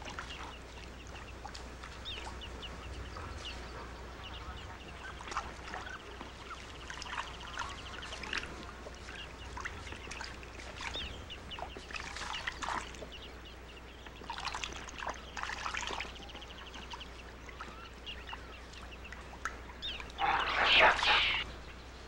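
Chirping and trilling birds over a low steady hum, with a few louder bouts of calling. A loud, harsh animal call sounds about 20 seconds in.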